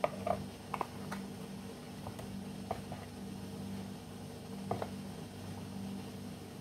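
A handful of light clicks and taps from hands working with kitchen things, over a steady low hum. The clicks come mostly in the first three seconds, with one more near the five-second mark.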